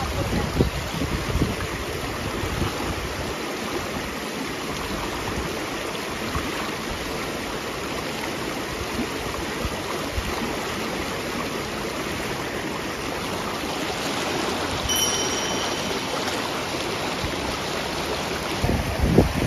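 Shallow river water rushing and churning over a low concrete step, a steady noise throughout, with a few low rumbles near the start and end.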